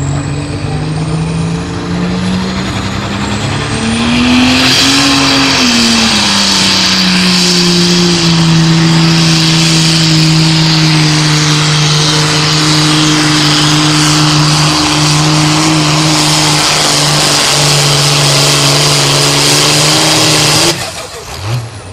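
Light limited super stock pulling tractor's turbocharged diesel engine revving up with a rising turbo whistle, then held at a steady pitch under heavy load as it pulls the sled down the track. The engine sound drops away abruptly near the end.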